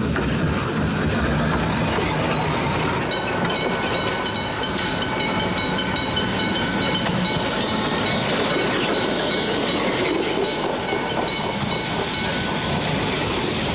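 Vintage Sydney electric trams running on the track, their wheels rolling over the rails. From about three seconds in, a steady high whine runs through the rolling noise.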